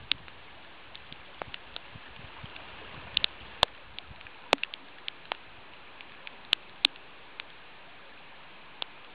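Steady rush of a flowing river, with scattered sharp ticks of raindrops striking close to the microphone at irregular intervals.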